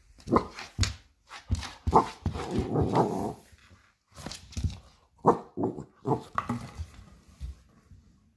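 Puppy barking and growling in a run of short bursts, with a longer growling stretch about two to three seconds in, at a plastic bottle.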